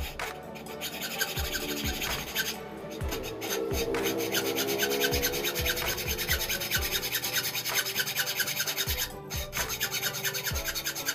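Hand hacksaw cutting through a motorcycle brake master cylinder clamped in a bench vise: steady back-and-forth rasping strokes, pausing briefly twice.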